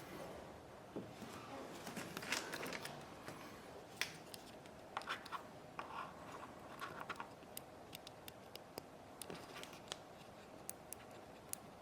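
Faint small clicks, taps and short scrapes of hands working small tools and parts at a workbench, scattered irregularly throughout.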